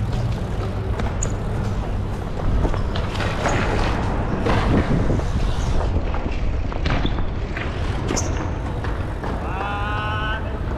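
BMX riding on concrete: rolling tyres with scattered sharp knocks and clacks of landings and bike parts, and a longer scrape in the middle, over a steady low rumble. A person's drawn-out shout rises near the end.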